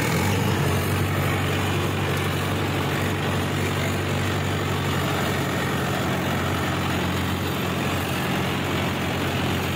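Tractor diesel engine running steadily under load while pulling a lowered tillage implement through the soil. Its note steps up in level at the outset, then holds an even, unchanging drone.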